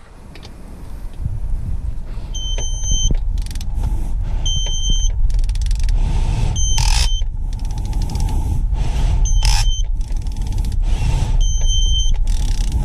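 ACDelco digital torque wrench giving clusters of short, high-pitched beeps as the torque on a 10 mm water pump bolt climbs past its 8.9 ft-lb setting, with the bolt being driven far over spec toward stripping its threads. Under the beeps runs a steady low rumble with brief bursts of rustling noise.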